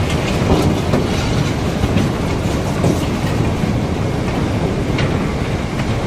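Loose rock and iron ore pouring down through the unloading hole in a barge's hold: a continuous rumble with frequent clacks and knocks of stone striking stone and metal.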